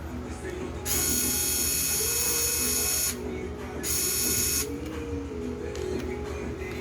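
A small electric motor whining in two bursts, the first about two seconds long and the second shorter, over a steady low hum.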